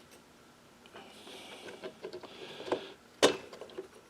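Light clicks and taps of small metal and plastic parts being handled as a carburetor is fitted onto a two-stroke leaf blower, with a brief soft rustle and one sharp click about three seconds in.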